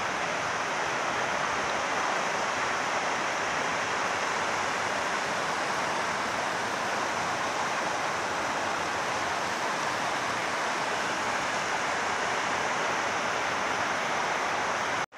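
Water rushing steadily over a small concrete dam spillway and down a rocky rapids, an even hiss.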